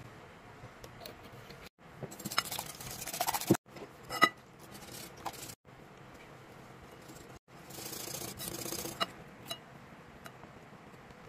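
Wire whisk beating eggs in a ceramic bowl: two fast, scratchy spells of whisking of a second or so each, with a sharp ringing clink against the bowl between them.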